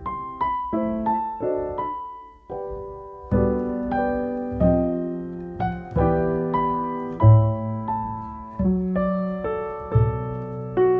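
Gentle piano background music: a sparse melody of single notes, filled out with chords and low bass notes from about three seconds in.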